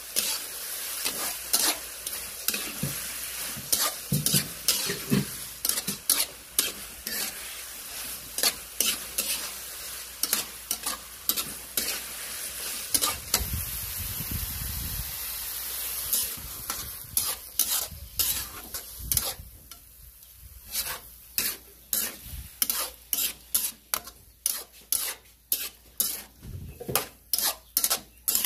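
Sautéing in a pan: a steady sizzle of frying with a spatula or ladle scraping and knocking against the pan as the food is stirred. The sizzle dies down about two-thirds of the way through, leaving mostly the knocks of the stirring, about two a second.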